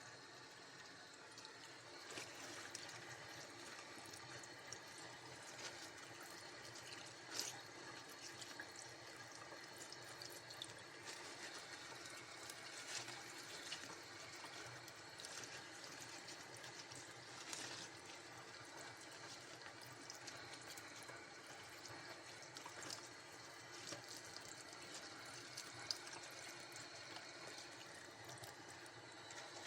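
Coltsfoot leaves being washed under a running tap: a steady, faint stream of water, with a few brief sharp splashes or clicks.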